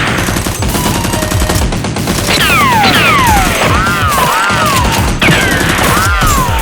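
Rapid bursts of gunfire, dense and continuous, with several falling whistling sweeps and arching tones laid over them.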